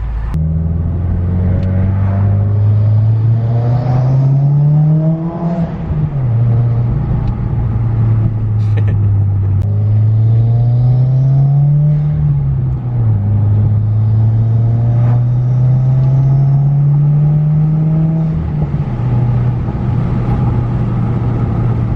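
2017 Subaru WRX's turbocharged 2.0-litre flat-four, breathing through an Invidia R400 cat-back exhaust, accelerating hard in a tunnel. The engine note climbs steadily in pitch, then drops back three times as at gear changes, and pulls again after each.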